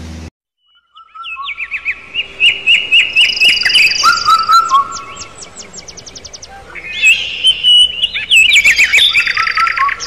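Chicks peeping loudly: many short, high chirps that fall in pitch, coming thick and fast from about a second in, with a quick run of higher chirps near the middle.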